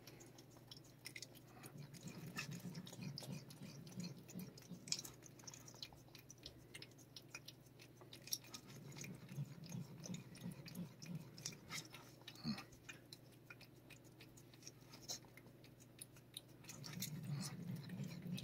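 A cat licking a Churu-style paste treat from a squeezed tube: faint, quick wet tongue clicks and smacks. A low rumble comes and goes underneath.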